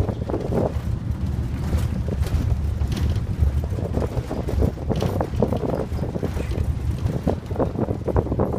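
Interior of a moving MAN A91 12-metre bus: a steady low rumble from the engine and road, with frequent short rattles from the cabin fittings.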